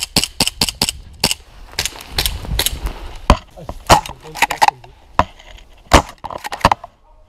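Airsoft gunfire: a run of sharp, irregular cracks and snaps, single shots and short clusters, some with a brief ring after them.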